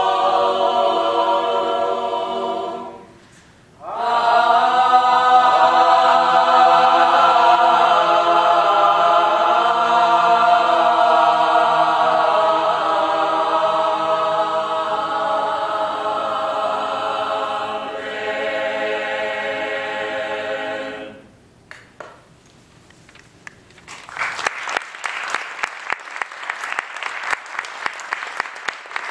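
Mixed choir singing a cappella in sustained chords, with a short break a few seconds in; the final chord cuts off about 21 seconds in. After a few seconds of quiet, the audience applauds.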